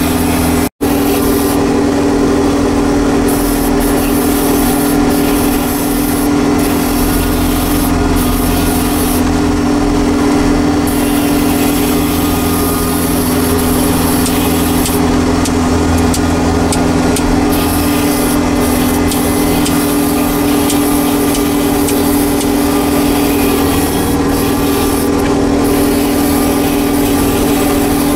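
Steady engine drone of a Case IH Patriot self-propelled sprayer heard from inside its cab at field speed, with a strong even hum. It drops out for an instant just under a second in.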